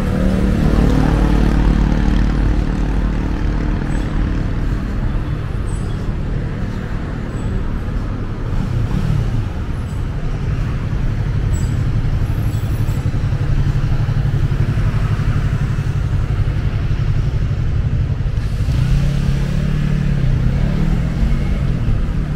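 City street traffic: cars and buses running past, with a motorcycle engine idling close by as it waits at a crosswalk, then revving up and down near the end.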